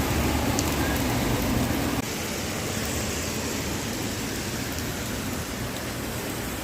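Heavy rain pouring down in a steady hiss. About two seconds in it suddenly drops a few decibels and loses its low rumble, then goes on steadily.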